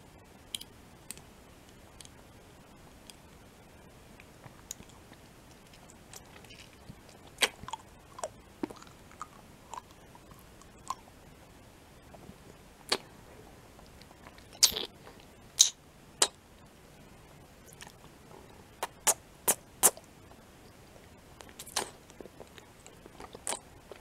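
Close-up mouth sounds of eating a chocolate umbrella on its plastic stick: irregular wet clicks, smacks and sucking at the lips. They are sparse and faint at first, then come sharper and louder in small clusters with quiet gaps between.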